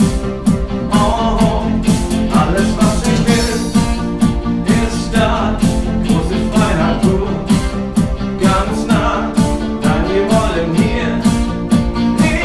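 Band music with a steady drum beat about twice a second, bass and guitar under a melodic line.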